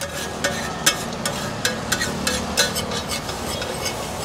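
Metal spatula scraping and clinking on a large flat tava as vada pav masala of gravy and garlic chutney is stirred and spread, over a low frying sizzle. The spatula strikes come about two to three times a second.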